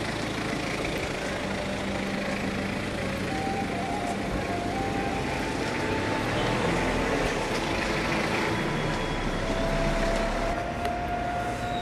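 Street traffic noise with a motor vehicle engine running steadily, and a deeper low rumble from about the middle to near the end.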